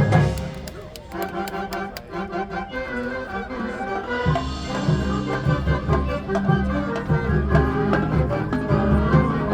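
Marching band playing its field show music. It drops abruptly to a softer passage of lighter, higher notes just after the start, then deep sustained chords come back in about four seconds in and carry on.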